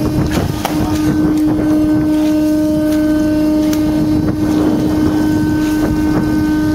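A loud, steady machine hum at one unchanging pitch, over a rough background drone, with a few scattered knocks and clatters.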